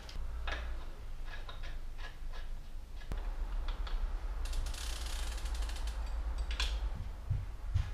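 Bicycle assembly handling: scattered clicks and knocks, with a fast run of ratcheting clicks about halfway through as a pedal is fitted to the crank of a trials bike held in a workstand.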